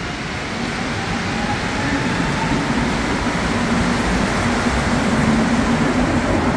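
Montréal Métro train on rubber tyres running through the station, its rolling noise and low motor hum growing steadily louder.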